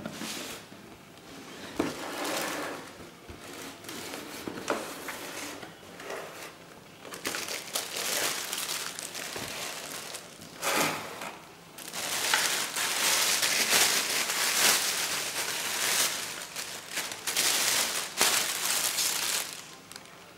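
Clear plastic bag crinkling and rustling as a bicycle helmet wrapped in it is lifted out of its box and unwrapped. It comes in bouts that get louder and busier through the second half, then stops shortly before the end.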